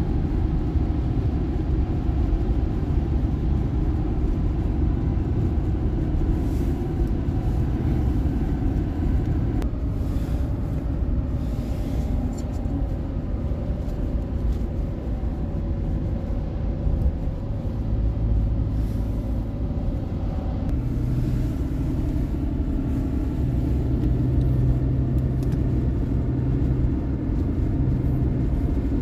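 Car driving on a highway: a steady low rumble of engine and tyres, with a low engine hum that shifts in pitch now and then.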